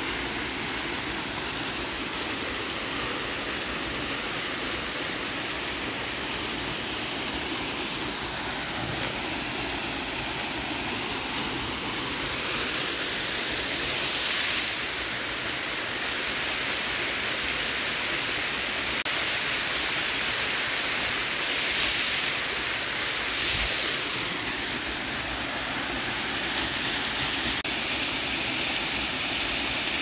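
Small woodland waterfall pouring over a rock ledge into a shallow pool: a steady rush of falling water that swells slightly now and then.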